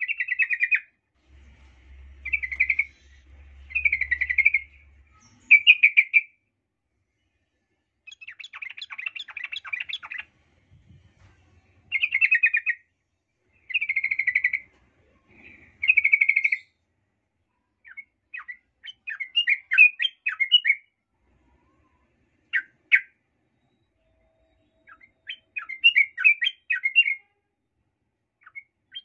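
Yellow-vented bulbul (trucukan) singing in short, bubbly phrases about a second long, separated by pauses of a second or two; past the middle the phrases turn into quicker chattering trills. This is a lure song that keepers use to provoke other bulbuls into anger.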